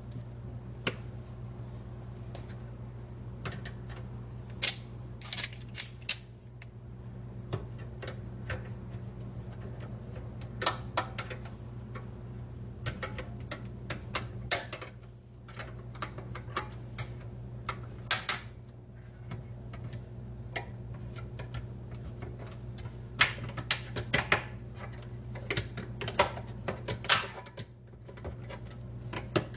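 Irregular sharp clicks and taps of a screwdriver working at the small metal clips around the edge of a microwave door's metal mesh plate, prying them out, some in quick clusters, over a steady low hum.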